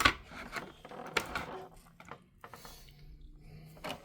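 Plastic and cardboard toy packaging being handled and pulled apart: a sharp click at the start, rustling and scraping, then a couple of knocks near the end.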